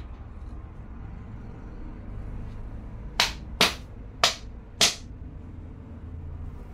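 Four sharp smacks of a thin wooden stick being struck, about half a second apart, over a steady low hum.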